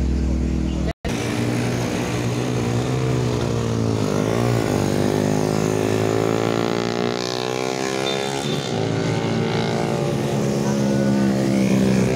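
Racing motorcycles revving hard up to and through a hairpin bend: the engine pitch climbs, dips twice as they shift up and climbs again, and is loudest near the end as two bikes pass close. Before that, a truck's deep engine rumble runs for the first second and is cut off abruptly.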